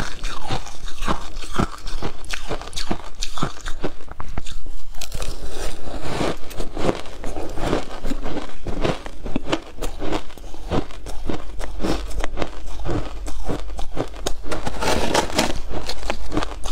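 Crushed ice being bitten and chewed with the mouth, a rapid, continuous run of loud, sharp crunches.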